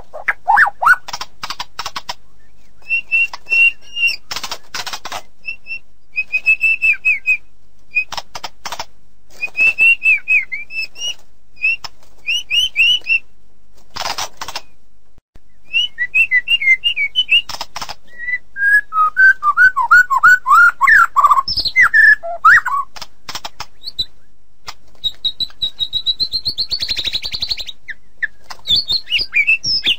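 White-rumped shama (murai batu) singing a long, varied song: clear whistled phrases broken by fast rattling clicks and quick runs of falling notes, with a brief break about halfway.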